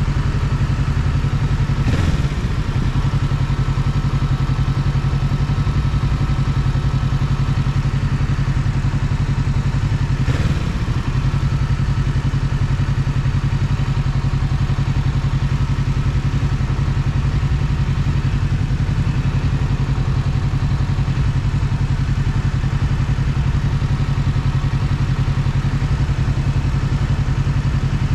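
Kawasaki Ninja 650's parallel-twin engine idling steadily while stopped, with two brief knocks, about two seconds in and about ten seconds in.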